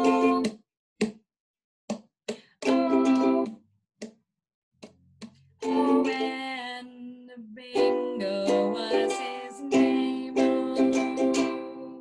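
Ukulele strummed in chords with some singing, broken in the first half by short sharp percussive hits and brief pauses, then strummed nearly without a break from about halfway through.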